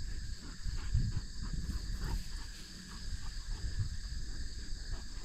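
Insects trilling steadily outdoors over a low, uneven rumble, with a few faint ticks.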